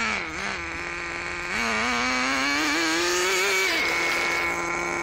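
Small nitro engine of a Thunder Tiger Tomahawk BX RC buggy being driven. It revs up and down in short blips, then climbs in revs for about two seconds as the buggy speeds away. Near the end it drops back and runs at a steady, high-pitched drone.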